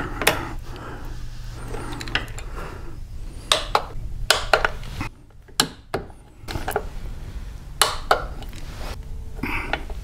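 A hand wrench clicking and clinking on the chrome derby-cover screws of a Harley-Davidson Twin Cam's primary cover, about a dozen sharp metallic clicks at irregular intervals, as the screws are tightened down.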